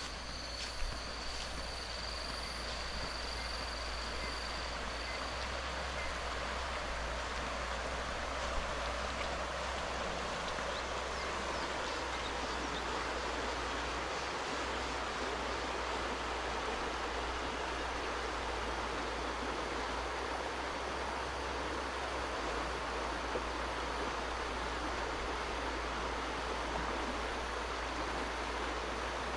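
A swift-flowing stream, its water rushing steadily over rocks.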